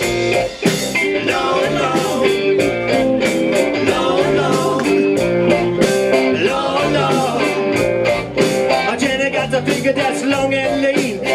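A live band plays amplified music: electric guitar over drums and keyboards, with a steady beat.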